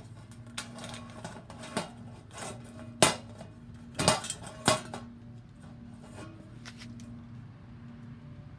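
Hammer driving a nail into a thin metal cake pan to punch holes: a series of sharp metallic knocks at uneven spacing. The loudest comes about three seconds in, with a quick cluster of blows soon after, and two fainter taps near the end.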